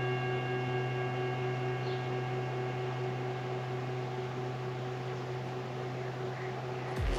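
Tibetan singing bowl, held on the palm, ringing on after a mallet strike: a low hum with several higher overtones, fading slowly.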